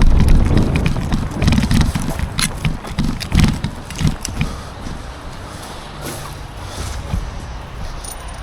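Handling noise and movement close to the microphone: a low rumble with irregular knocks and clicks, easing off about halfway through.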